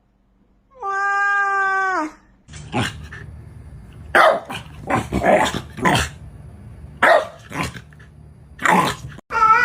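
A cat meows once, a long call that falls in pitch at the end. Then comes a run of short, harsh, growl-like animal cries.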